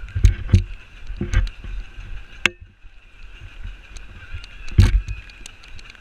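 Wind buffeting and knocking on a pole-mounted action camera's microphone, carried by a running runner. There are several heavy low thumps, loudest early on and again about five seconds in, with a sharp click in between.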